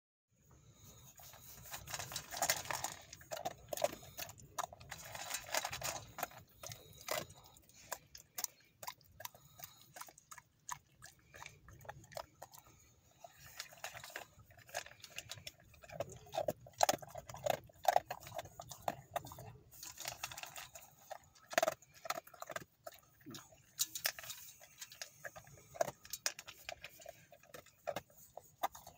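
A dog eating from a stainless steel bowl: irregular clicks and crunches as its mouth and teeth knock against the metal, coming in spells with short pauses between.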